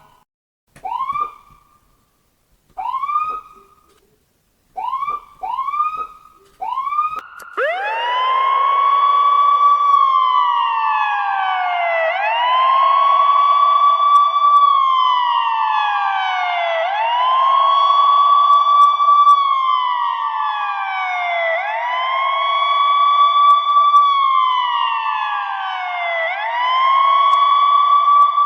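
Ambulance siren: several short rising whoops with gaps between them. About eight seconds in it settles into a continuous wail. Each cycle rises quickly, holds its top note, then slides slowly down, repeating about every four and a half seconds.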